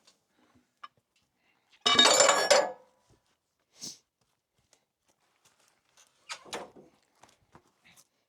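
Steel parts of a portable sawmill clanking as the log is turned on its bed: one loud metallic clank with a short ring about two seconds in, then a lighter knock and a cluster of softer knocks later.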